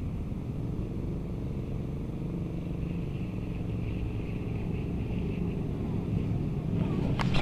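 Shimano Curado K baitcasting reel cranked steadily, a lure being retrieved, its gears giving a continuous whir, with one sharp click near the end.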